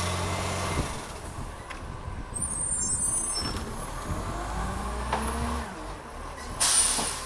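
Side-loading garbage truck's diesel engine pulling away and picking up speed, then a short, loud burst of air-brake hiss near the end.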